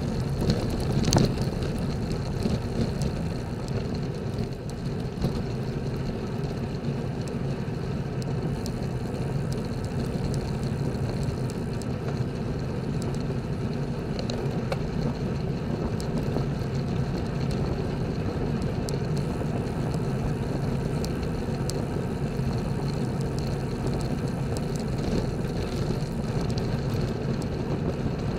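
Steady wind rush on a bike-mounted camera's microphone and tyre hum from a road bicycle rolling at about 26 to 30 km/h, with a single sharp knock about a second in.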